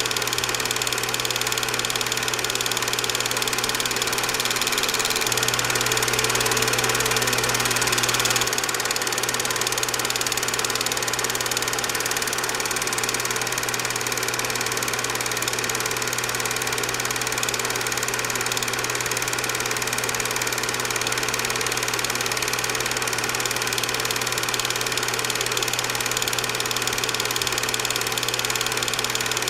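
A steady mechanical running drone with a constant low hum, unchanging throughout.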